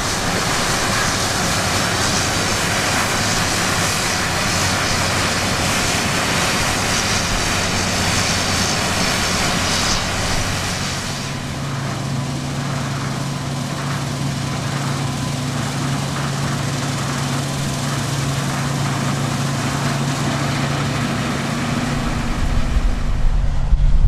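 Harvest machinery running steadily: a loud mechanical rush, with a steady engine hum coming up about halfway through as the high hiss drops away.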